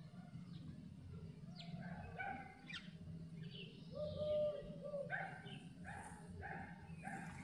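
Short pitched animal calls: a few scattered ones, a longer, louder call about four seconds in, then a quick run of short calls about two a second.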